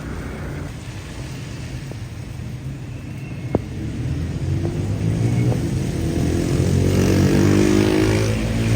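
Road traffic on a rain-soaked street: a motor vehicle's engine grows louder from about halfway and passes close near the end, with tyre hiss on the wet road at its loudest. A single sharp click about a third of the way in.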